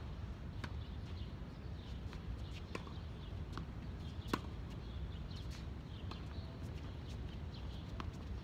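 Tennis rally on a hard court: a string of sharp pops from racket strikes and ball bounces, the loudest about four seconds in, over a steady low rumble.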